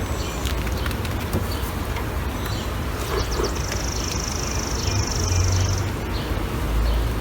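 Outdoor ambience at an open beehive: a steady noisy background with low rumbles and faint clicks of frames being handled. About three and a half seconds in, a high, buzzy trill sounds for about two seconds.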